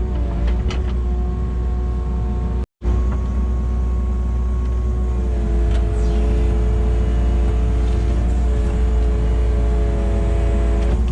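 Kubota KX080 excavator's diesel engine running steadily under work, with a split-second gap about three seconds in and a small step in pitch about five seconds in.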